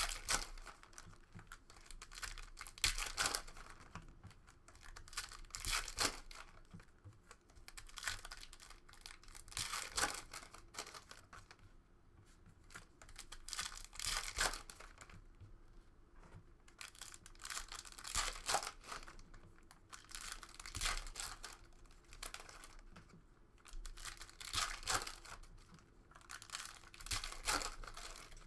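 Trading card pack wrappers crinkling and tearing, with cards being handled, in irregular bursts every second or few.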